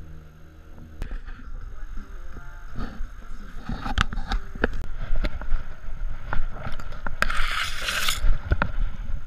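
Handling noise from an action camera strapped to a walking dog: the mount rubs and rumbles with the dog's movement over bare rock, with a string of sharp clicks and knocks from its steps and claws. A brief hissing rush comes about seven seconds in.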